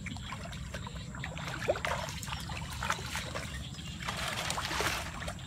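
Shallow muddy water sloshing and trickling as a person wades through it and reaches into it, with scattered small splashes and knocks over a steady low rumble.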